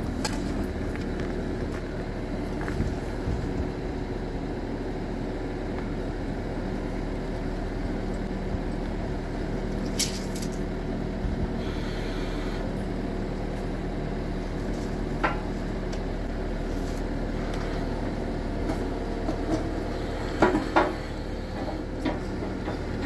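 Case TV450 skid steer's diesel engine running steadily at constant speed, with a few sharp metal clanks over it.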